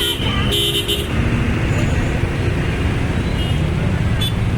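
Road-traffic noise with engine rumble, and a brief multi-tone bus horn toot at the start, loudest about half a second in.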